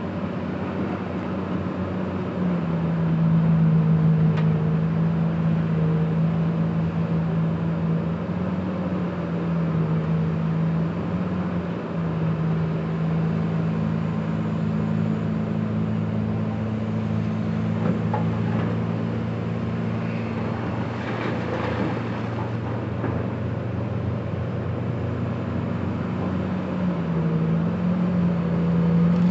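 Komatsu PC2000 mining excavator's diesel engine running under working load, its pitch stepping up and down every few seconds as it digs and swings. A broader rush of noise comes in about two-thirds of the way through.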